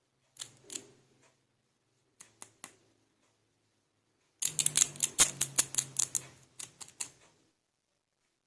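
Sharp clicks and clacks of plastic toy pieces being handled. Two clicks come near the start and three lighter ones about two seconds in, then a quick clattering run of clicks lasts for about three seconds.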